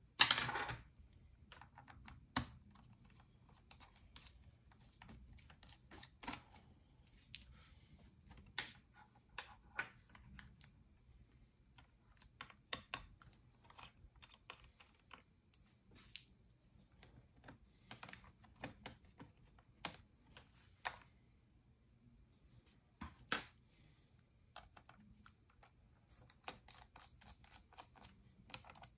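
Scattered, irregular light clicks and taps, with a louder clatter right at the start, over a faint steady high whine.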